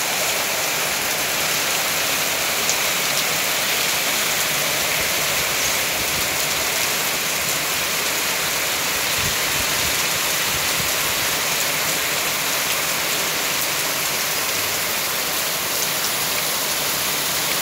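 Heavy downpour: a dense, steady hiss of rain.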